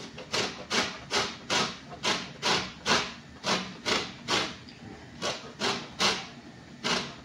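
Orange peel being grated on a metal box grater: about fourteen quick scraping strokes, roughly two a second, with a couple of short pauses, zesting the orange.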